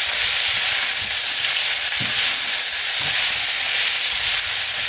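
Meatballs and freshly added diced onion sizzling in oil in a nonstick frying pan while being stirred with a spoon: a steady, even frying hiss with a few soft bumps from the stirring.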